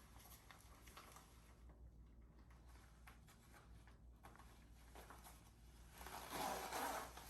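Near silence: room tone with faint scattered ticks, and a soft noise about a second long around six seconds in.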